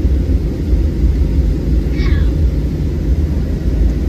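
Steady low rumble inside the cabin of a Boeing 737-800 rolling along the ground after landing.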